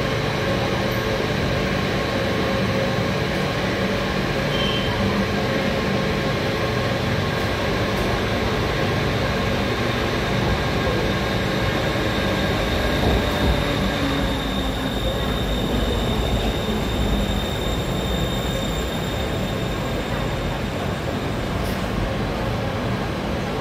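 BTS Skytrain electric metro train pulling into an elevated station platform and coming to a stop. The trains give a steady rumble with a few steady whining tones over it.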